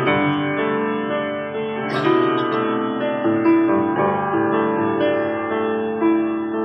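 Piano-like keyboard playing slow sustained chords, with a short noisy hit about two seconds in.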